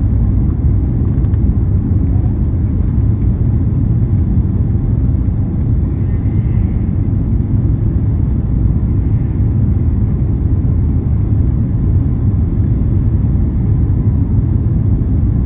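Airliner cabin noise in flight: a steady low rumble of engines and airflow.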